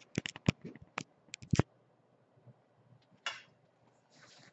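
Small objects being handled and set down on a desk: a quick run of sharp clicks and knocks over the first second and a half, then a short scrape about three seconds in.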